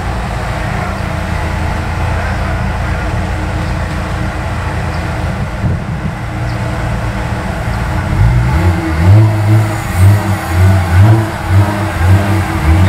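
Car engine running steadily through its exhaust, then revved in quick repeated throttle blips, about two a second, from about eight seconds in.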